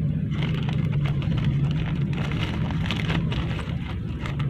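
Small clear zip-lock plastic bag crinkling and rustling in the hands as screwdriver bits are handled with it, in many short irregular crackles over a steady low hum.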